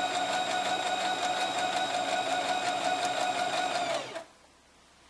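Brother XL2600-series electric sewing machine running at steady speed with an even, rapid rhythm of needle strokes over a motor whine while stitching a zigzag through fabric; it slows and stops about four seconds in.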